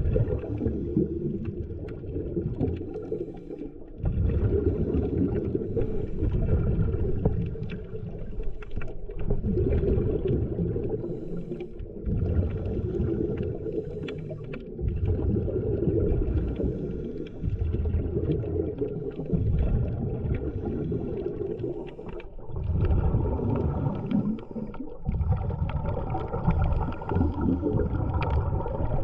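Muffled underwater noise: a deep rumble with bubbling and gurgling that swells and eases every few seconds.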